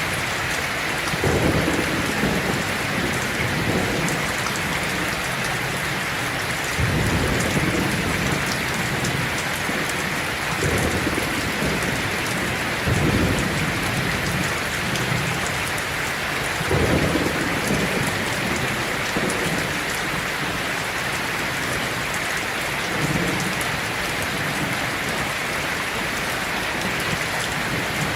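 Heavy rain drumming steadily on a tin roof, with several low rolls of thunder rising and fading over a few seconds each.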